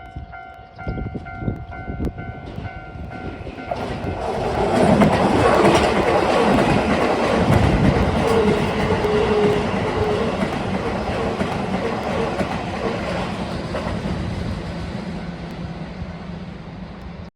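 Level crossing alarm ringing steadily. About four seconds in, a Toei Asakusa Line 5500 series electric train runs over the crossing, with loud rumbling and wheels clattering over the rail joints, loudest a second or two after it arrives. The train noise then slowly eases as the cars go by.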